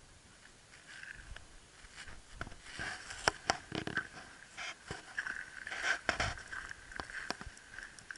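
Footsteps crunching on shingle: irregular crunches and clicks that grow busier about three seconds in.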